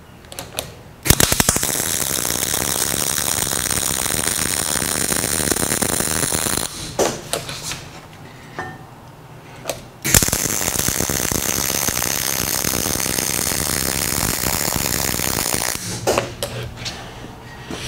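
MIG welder arc crackling steadily through two long beads of about five seconds each, with a few short tack bursts between them and near the end.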